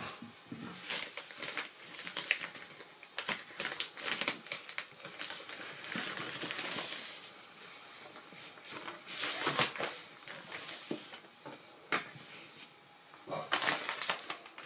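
Thin plastic dust bag rustling and crinkling as it is pulled off a fabric carrying case, in irregular bursts with short clicks and taps from handling, quieter for a few seconds in the middle.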